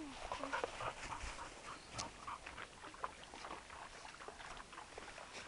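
Dry bamboo leaf litter crackling and rustling under footsteps, in many short irregular crackles, with a few brief faint squeaks in the first half.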